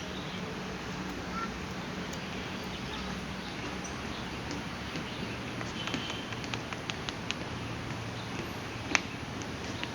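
Footsteps on a path with steady outdoor background noise: light irregular steps from about halfway through, one sharp click about nine seconds in, and a few faint chirps.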